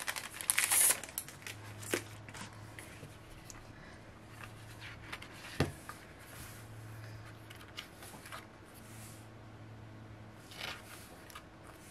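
Plastic packaging crinkling and rustling as small merchandise items are handled. The crinkling is loudest in the first second, then turns into quieter rustles with a few light taps, the sharpest about halfway through.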